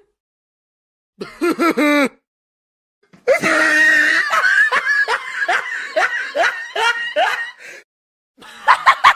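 Short meme sound-effect clips separated by silence; the longest, about four and a half seconds, is a person laughing in bursts that repeat about twice a second.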